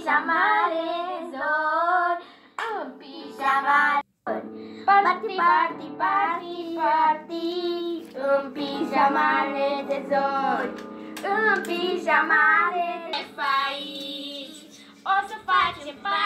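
Pop song with a young girl's singing voice over backing music, cutting out briefly about four seconds in.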